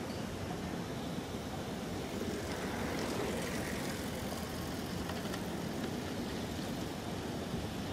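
EF65 electric locomotive with its freight train approaching from a distance: a steady low rumble with faint rail noise.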